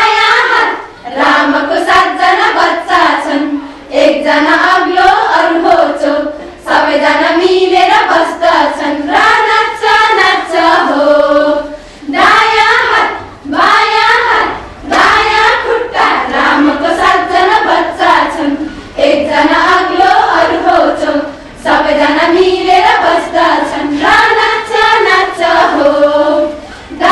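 A group of women singing a Nepali children's action rhyme together, in short phrases with brief pauses between them.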